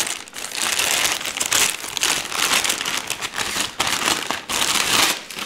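Clear plastic bag crinkling and rustling as hands open it and slide a tower CPU cooler out, with a few brief lulls.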